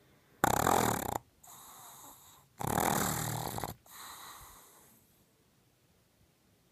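Pug snoring very loud: two loud snores about a second long, each followed by a softer breath.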